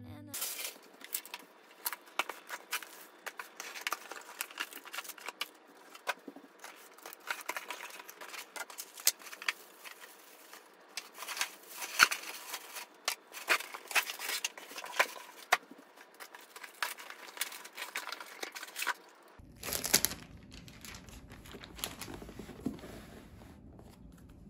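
Grocery delivery packaging being handled and unpacked by hand: dense crinkling and rustling with many small sharp crackles and taps. About nineteen seconds in the crinkling stops, leaving a quieter low hum with a few soft knocks.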